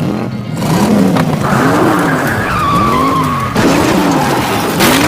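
Cartoon vehicle sound effects: an engine pitch rising and falling about once a second, with a tyre-skid screech from about one and a half to three and a half seconds in.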